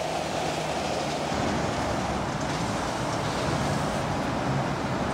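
A steady stream of articulated lorries driving past on a dual carriageway: an even rumble of diesel engines and tyre noise.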